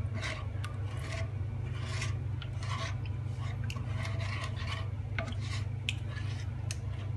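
Wooden spatula stirring a thin, unheated custard mix in a speckled nonstick frying pan, scraping across the pan bottom in repeated strokes, roughly one or two a second. A steady low hum runs underneath.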